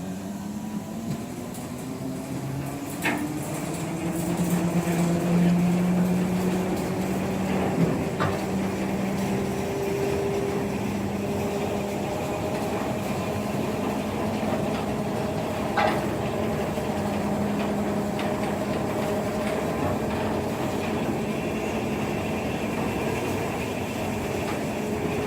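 Railway turntable turning with a steam locomotive on it. A steady drive hum rises in pitch over the first ten seconds or so, then holds level, and a few sharp metallic clanks come about three, eight and sixteen seconds in.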